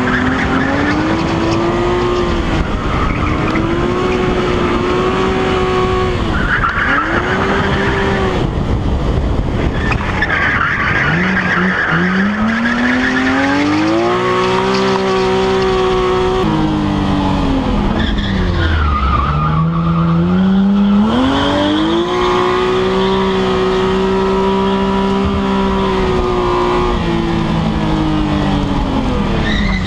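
BMW E30 M3 drift car's engine revving hard through a run of slides. The pitch climbs, holds at high revs for a few seconds, then drops off, about five times over. The tyres squeal now and then during the slides.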